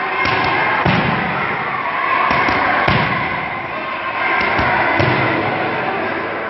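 Boxing gloves striking focus mitts: quick thuds in short combinations of two or three punches, about every two seconds.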